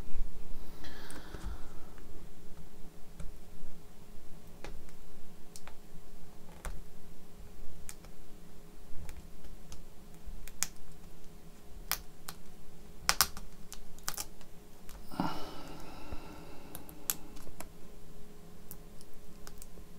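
Irregular light clicks and taps of small laptop parts being handled during disassembly, with a brief louder rustle about fifteen seconds in and a faint steady hum underneath.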